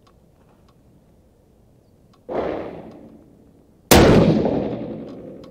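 Two rifle shots about a second and a half apart, the second much louder and sharper, each dying away over a second or more. The louder one is the Howa 1500 in 6.5 PRC, fitted with a Thunder Beast muzzle brake, fired from the bench.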